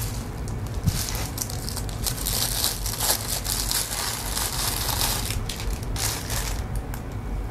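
Plastic bag and bubble wrap crinkling and crackling in the hands as a camera battery is pulled out of its wrapping, in irregular bouts that are heaviest twice mid-way and die away near the end.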